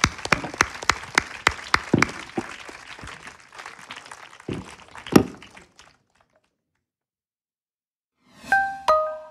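Audience applause that thins out and dies away over the first few seconds, with a loud single thump about five seconds in. After a couple of seconds of silence, a short jingle of bright chiming, glockenspiel-like notes begins near the end.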